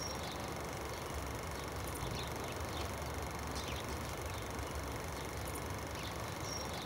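Steady background noise with a low rumble, and faint short high chirps scattered through it.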